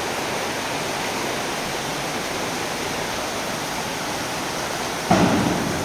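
Steady rushing noise of machinery in an automatic layer chicken house, with a short louder sound about five seconds in.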